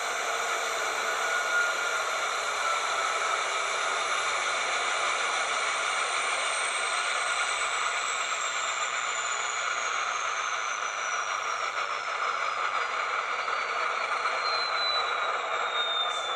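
Model diesel locomotive's DCC sound decoder playing a GE GEVO or EMD SD70ACe diesel engine sound through a small speaker: a steady engine sound with a high whine that falls slowly in pitch.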